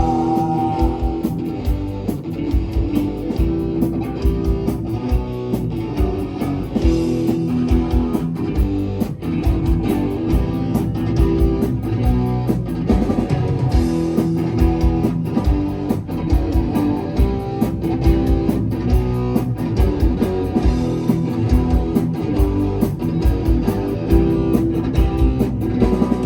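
Rock band playing an instrumental passage of the song: strummed electric guitar over bass guitar and a steady drum beat.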